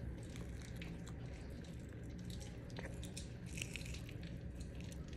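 Two-toed sloth chewing and biting a piece of corn on the cob close to the microphone: a run of small, irregular clicks over a steady low hum.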